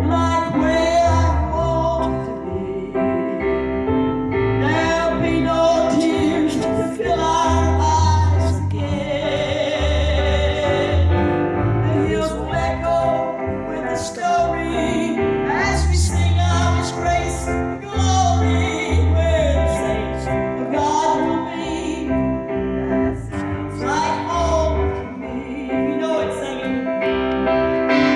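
Gospel song sung with instrumental accompaniment, a sustained bass line underneath the vocal melody.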